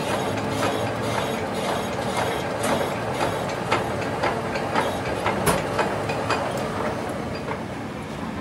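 Lathe spinning a differential gear housing while a boring bar cuts its bearing bore: a steady machine hum with a regular tick a little over once every half-second. It eases off slightly near the end as the housing slows.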